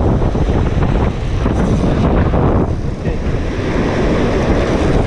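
Strong wind buffeting the microphone, with surf washing behind it.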